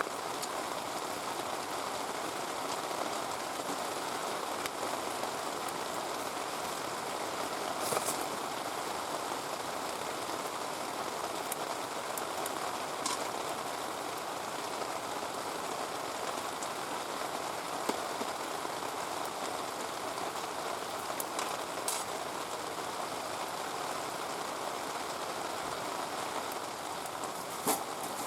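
Heavy rain falling steadily, with a few sharp clicks or knocks scattered through it.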